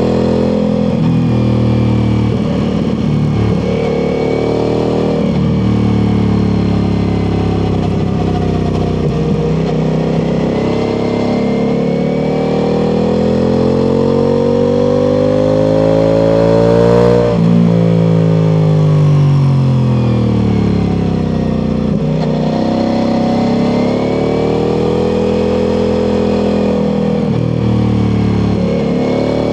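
Ducati Multistrada V4 Pikes Peak's V4 engine through an Akrapovič exhaust, pulling hard on a twisty road with revs rising and falling through the gears. The pitch climbs to a peak about two-thirds of the way through, then drops sharply and winds down as the throttle closes.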